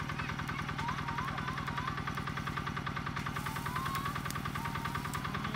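Tractor engine idling steadily with a fast, even pulse. A few high whistling notes glide over it.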